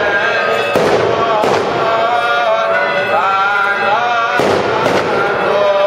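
Firecrackers going off at the Orthodox Easter Resurrection, about four sharp echoing bangs, over Byzantine chant sung by the clergy.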